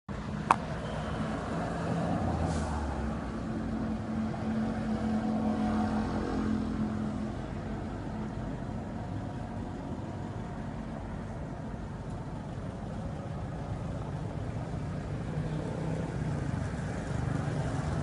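Street traffic noise as a police escort car drives past, its engine running, with the coach convoy's engines drawing near toward the end. A single sharp click comes about half a second in.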